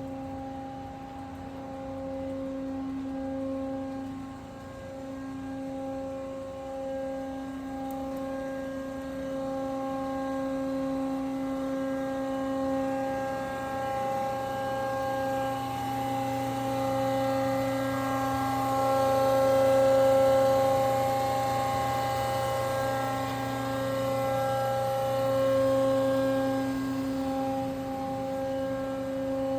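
Hyd-Mech H-22A horizontal metal-cutting bandsaw running, a steady machine hum that swells and eases in loudness.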